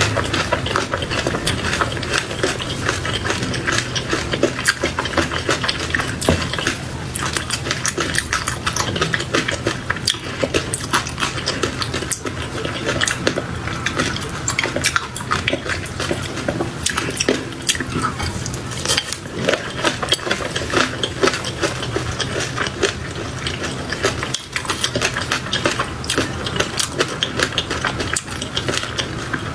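Close-miked eating sounds of raw shrimp with peanut sauce being chewed: a dense, continuous run of quick mouth clicks and smacks.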